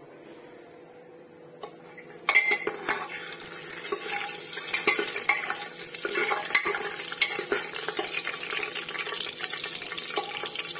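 Whole spices (star anise, bay leaves, cinnamon, cumin) sizzling and crackling in hot ghee in an aluminium pressure cooker, with a spoon stirring and clinking against the pot. The sizzling starts suddenly about two seconds in.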